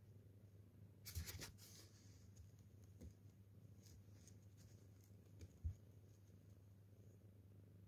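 Faint rustling and scratching of a cat's fur and its cardboard box being handled. A cluster of scratchy rustles comes about a second in, a few soft ticks follow, and a short knock comes a little past the middle, over a low steady hum.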